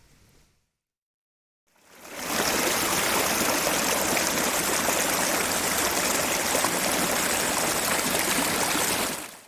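Rushing water of a forest stream: a steady, loud hiss of flowing water that fades in about two seconds in and fades out near the end.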